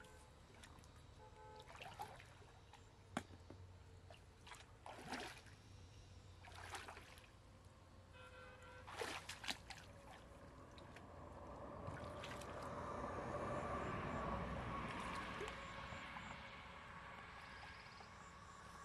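Person wading into shallow ditch water: scattered small splashes and drips at first, then a longer sloshing swell as the legs push through the water, fading near the end.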